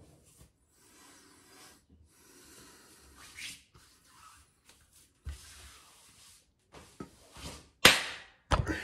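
Soft swishes of hands rubbing over freshly shaved skin, each about a second long. Near the end comes a loud knock and a run of handling clicks as a hand grabs the camera.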